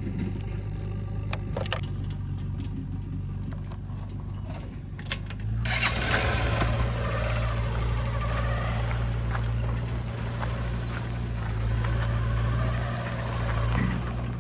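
Heavy diesel machinery engine running steadily, with scattered light clicks and knocks; about halfway through the sound changes abruptly to a louder, busier engine noise with more hiss.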